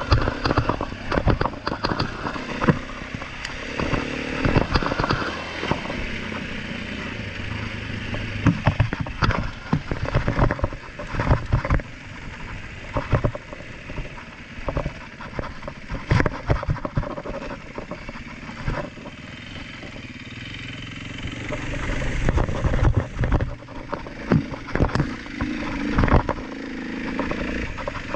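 KTM dirt bike engine running and revving while riding a rough dirt trail, with many sharp knocks and rattles from the bike going over bumps. The engine gets louder about three-quarters of the way through.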